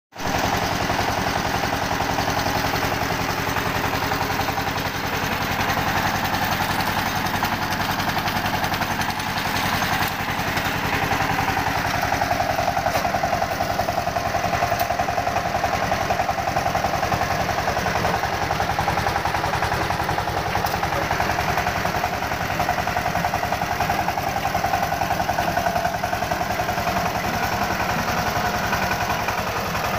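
Greaves 15 HP power tiller's single-cylinder diesel engine running steadily with a fast, even firing beat while its rotary tines work dry soil.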